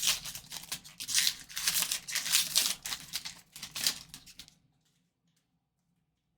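Crinkling and tearing of a trading-card pack wrapper as the cards are handled, in quick irregular rustles that stop suddenly about four and a half seconds in.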